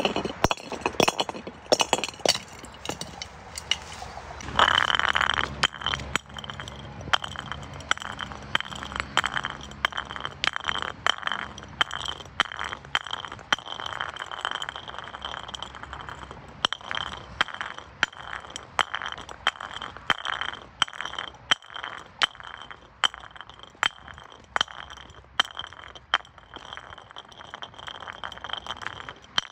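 Glass bottles clinking and knocking: many rapid sharp glass impacts, loudest in the first few seconds, with a steady high ringing of glass under the clinks from about four seconds in.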